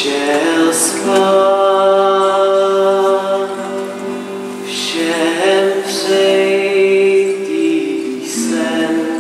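Teenage voices singing in harmony without instruments, holding long notes, with a new phrase starting about five seconds in.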